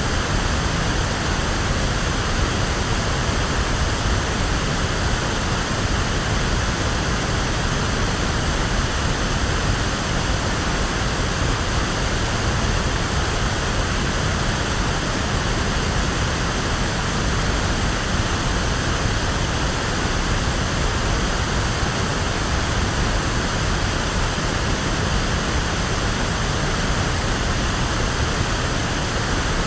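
Steady, electronically generated pink noise: an even hiss with more bass than white noise, unchanging throughout.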